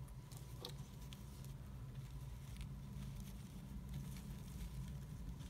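Faint handling sounds of fingers pressing and adjusting a satin fabric flower: a few soft ticks and rustles, most of them in the first second or so, over a steady low hum.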